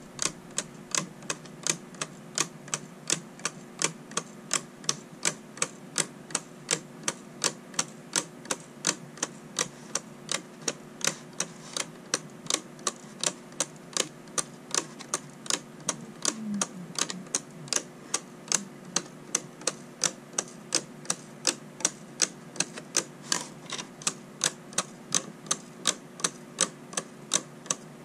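A 3D-printed plastic tourbillon clock movement ticking: its escapement gives a fast, even run of sharp plastic clicks, about two to three a second.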